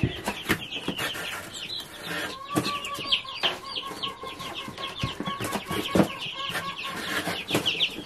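A brood of four- to five-day-old meat bird chicks (Cornish cross and Western rustic) peeping rapidly and continuously, with occasional knocks as they are handled and set back in the brooder.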